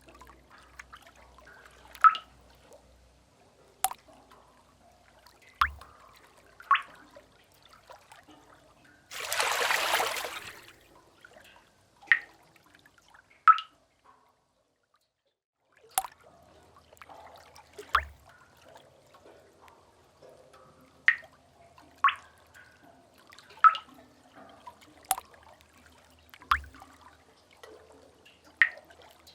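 Water drops falling one by one into a pool in a sea cave, about fifteen separate, ringing plinks at irregular intervals. About nine seconds in there is a short rush of water lasting about two seconds.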